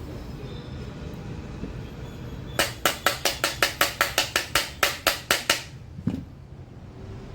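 A fast, even run of sharp knocks, about five a second for some three seconds, then one more knock half a second later.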